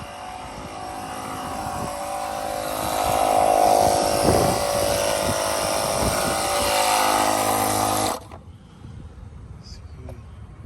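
A motor-driven machine running steadily with a whine and a hiss, growing louder over the first few seconds, then switched off abruptly about eight seconds in.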